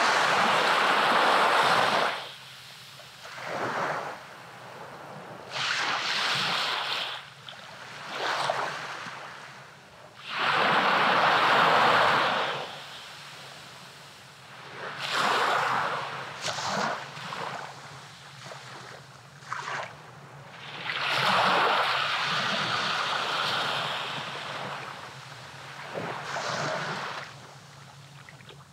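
Small waves breaking on a sandy beach and washing up the shore, each wash swelling and fading away over a second or two, again and again.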